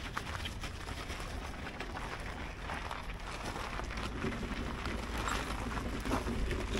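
Outdoor ambience while walking on a gravel lot: a steady low rumble of wind on the microphone, with scattered light crunches and scuffs of footsteps on gravel.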